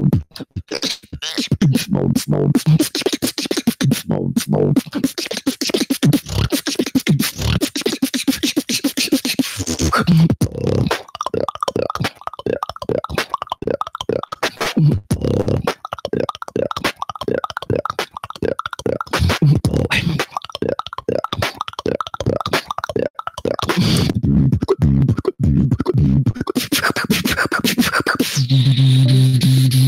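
Solo beatboxing into a handheld microphone: fast percussive mouth clicks and snares over deep hummed bass notes. The middle stretch is a quick, even run of clicks, and a long low bass note is held near the end.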